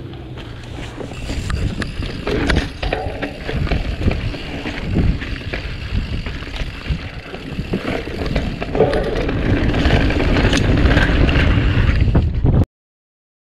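Wind buffeting the microphone of a camera riding on a Santa Cruz Bronson mountain bike as it descends a dirt trail, with the tyres and bike clattering in many short knocks over the rough ground. The sound cuts out abruptly near the end.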